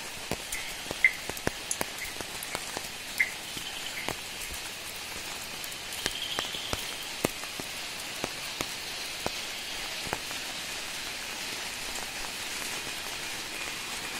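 Heavy monsoon rain falling steadily, with many sharp taps from drops landing close by, thickest in the first few seconds.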